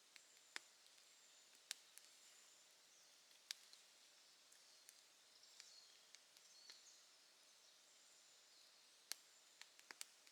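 Campfire crackling softly: sparse, sharp pops at irregular intervals over a low hiss, with a quick run of several pops near the end.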